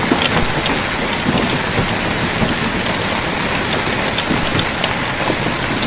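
Storm precipitation pelting down hard, heavy rain with hail: a steady dense hiss with many small sharp ticks of impacts scattered through it.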